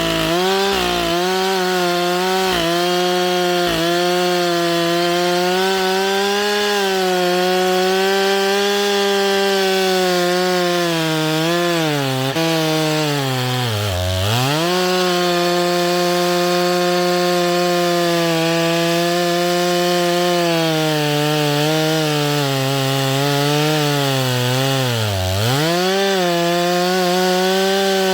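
Chainsaw running at high revs under a cutting load, its pitch wavering as it works. About halfway through, and again near the end, it bogs down sharply and then picks back up.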